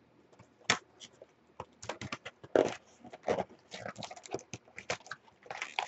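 Cardboard trading-card box being torn open and handled by hand: an irregular run of sharp crackles, clicks and scrapes, with a few longer tearing sounds.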